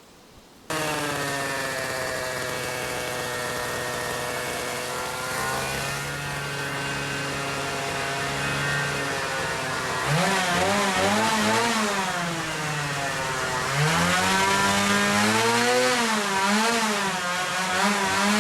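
Engine sound effect, motorcycle-like, starting abruptly about half a second in and running steadily, then revving up and down in repeated swells from about ten seconds in, and again from about fourteen seconds.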